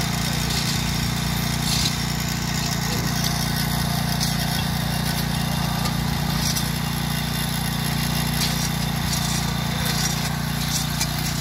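Small petrol engine of a portable rail track-maintenance machine running steadily at the rail, an even engine hum with no change in speed.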